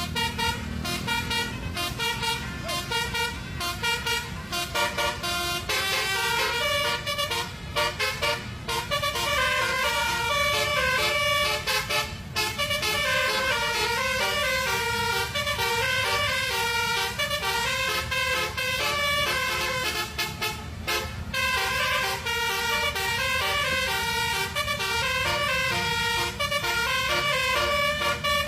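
Telolet Basuri musical horn playing a quick melody of stepped notes, over a steady low rumble.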